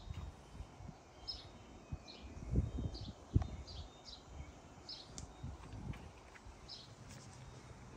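Small birds chirping: short high calls, several in a few seconds, over faint outdoor background noise. A few low thumps, the loudest about two and a half and three and a half seconds in.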